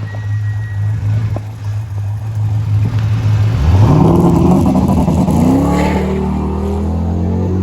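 Ford Escort Mk2's Millington Diamond four-cylinder race engine running steadily at a low note, then, about halfway through, revving up sharply in two rising steps and holding a higher, louder steady note.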